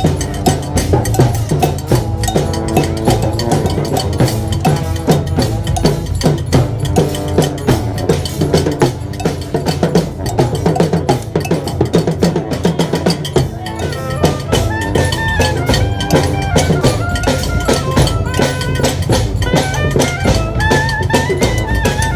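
Street band playing live: dense, driving drumming under pitched melody instruments, with a higher melody line coming in about two-thirds of the way through.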